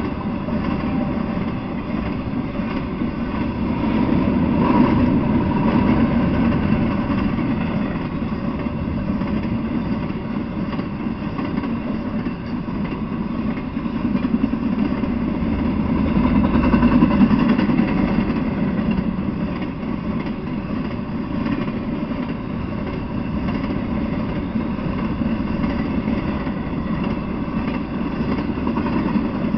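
Intermodal freight train, trailers on flatcars, rolling past at speed: a steady rumble of steel wheels on the rails that swells a little about five seconds in and again past the middle.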